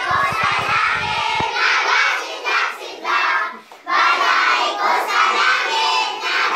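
A group of children singing together, many young voices at once, with some shouting.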